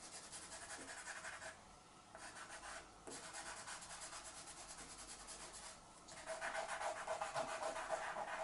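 Pastel pencil scratching over light gray Pastelmat board in quick, short, repeated strokes, with a few brief pauses. The strokes get louder over the last couple of seconds.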